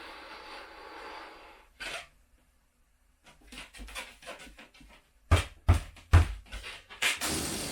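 A latex balloon being blown up by mouth: long steady blows of air into it, with quick panting breaths between them. Three sharp thumps, the loudest sounds, come a little after the middle.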